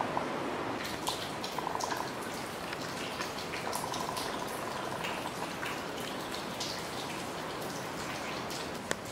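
Steady rain with water dripping and splashing in many short scattered drops; one sharp tap near the end.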